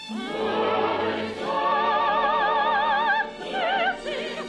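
Operetta singing with orchestra and chorus: a singer with a wide vibrato holds a long note, then sings a shorter one near the end.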